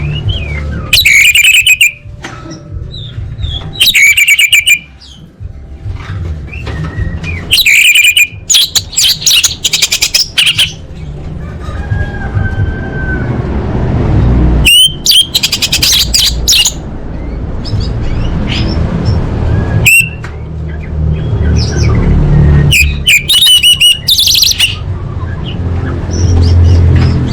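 Orange-headed thrush singing in loud bursts of rapid, varied high warbling phrases with pauses between them, over a steady low rumble.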